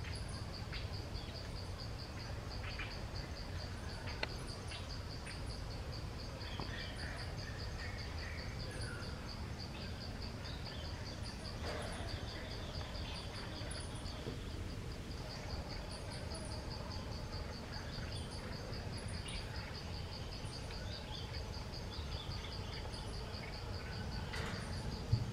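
Insects trilling steadily in a fast, even, high-pitched pulse, with short faint chirps scattered through and a low background rumble.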